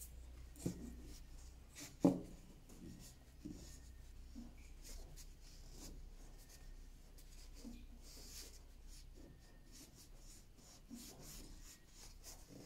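Cloth rubbing a beeswax and linseed oil finish into a wooden knife handle: soft, irregular rubbing strokes, with a single knock about two seconds in.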